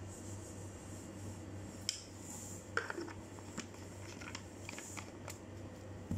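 Glass jars and a bowl clinking and knocking as they are handled and set down on a counter: a handful of scattered sharp clicks over a steady low hum.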